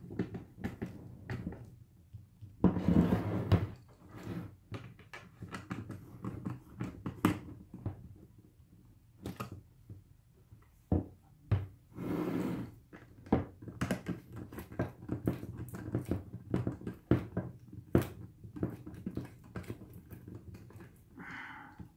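Screwdriver driving the screws of a football helmet's facemask hardware, with irregular clicks and knocks of tool and helmet shell on a tabletop. There are two longer handling noises, about three seconds in and about twelve seconds in.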